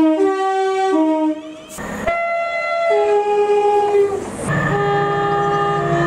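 Train horns sounded by passing trains, in three edited-together clips. First a passenger unit's two-tone horn alternating high and low notes; after a cut about two seconds in, another two-note horn. From about four and a half seconds, a Freightliner diesel locomotive's horn holds its notes over the engine's low drone.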